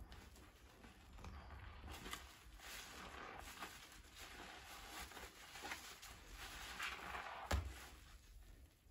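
A soapy sponge squeezed and kneaded by hand in a basin of thick foam: faint wet squishing and the crackle of foam bubbles. One louder thump about three-quarters of the way through.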